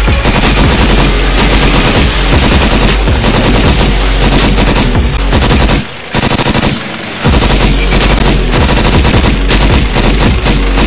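Loud, rapid clattering over a steady deep rumble from a moving T-80BV tank, heard from on top of the hull, with a short drop in level about six seconds in.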